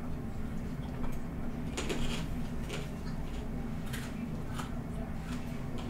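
Someone eating fried chicken: a few faint crisp crackles and smacks from picking apart and chewing the breaded skin, over a steady low background hum.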